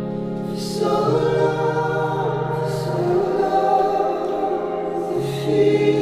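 Background music: voices singing over long, held low notes that change pitch a few times.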